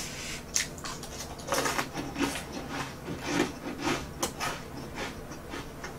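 Chewing a mouthful of crispy toasted garlic bread: irregular crunches, about two a second.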